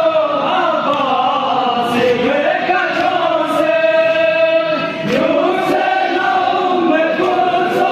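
A crowd of men chanting a noha in unison, the held lines rising and falling together. Faint slaps of hands beating on chests (matam) sound a few times.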